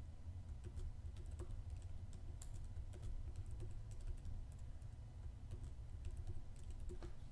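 Computer keyboard keystrokes: a quick, irregular run of faint clicks as a password is typed, over a low steady hum.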